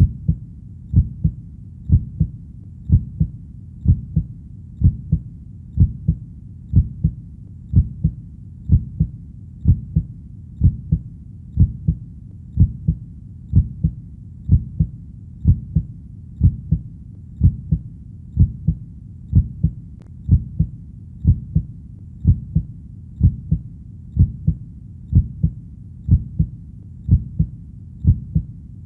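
Heartbeat, each beat a low double thump (lub-dub), repeating at an even, steady pace of about one beat a second.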